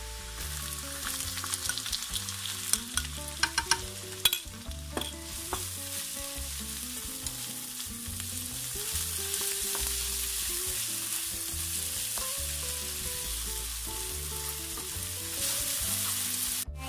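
Diced onions sizzling as they go into hot butter and oil with garlic in a wok, stirred with a plastic slotted spatula. A run of sharp clicks and knocks of the spatula against the pan comes about two to five seconds in, over a steady sizzle.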